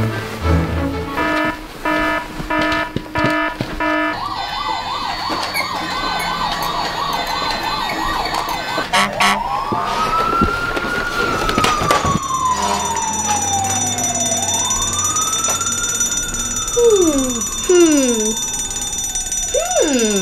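Toy fire truck's electronic siren: a fast warbling yelp for several seconds, then slow wails that rise and fall over several seconds each.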